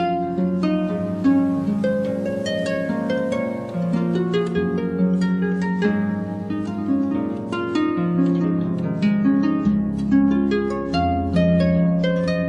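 Calm instrumental music: a harp plucking a quick flowing run of notes over a held low drone.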